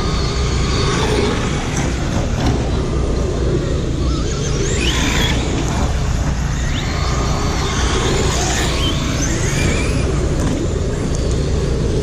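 Radio-controlled dirt-oval race car running, its motor whine rising and falling with the throttle a few times over a steady low rumble.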